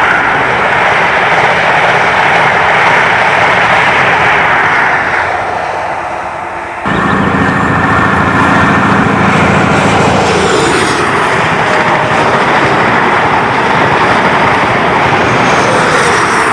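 InterCity 125 high-speed diesel trains running at speed: the first train's noise fades away, then after an abrupt cut the next one approaches through the tunnel, its power car engine humming steadily and growing into loud passing noise as it comes out of the portal.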